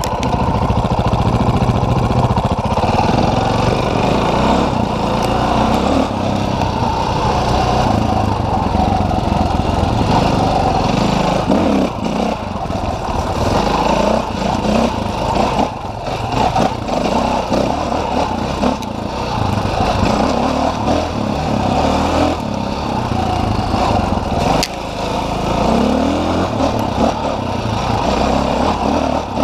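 Dirt bike engine running as the bike is ridden along a trail, its note rising and falling with the throttle. Its loudness dips briefly a few times.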